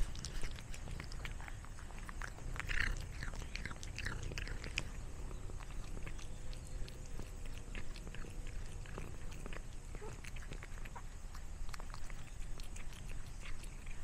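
Domestic cat chewing and smacking on a snack close to the microphone: a run of short, irregular clicks, busiest in the first few seconds, then thinning out.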